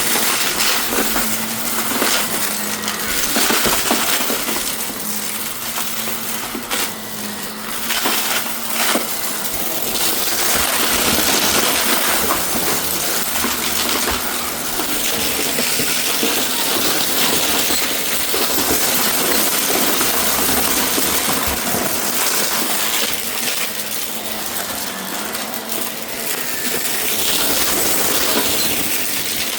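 Shark vacuum cleaner running, with a dense rattling and clinking of small hard debris being sucked up through it.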